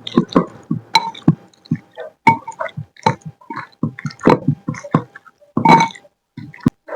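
Samyang Carbonara instant noodles being stirred and mixed in their sauce: a string of irregular short wet squelches and clicks.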